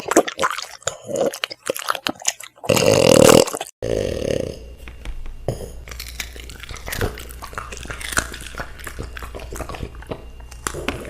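A dog crunching and chewing food, a quick run of crisp clicks. About three seconds in comes a loud, rough noise lasting about a second, then quieter scattered chewing clicks over a steady low hum.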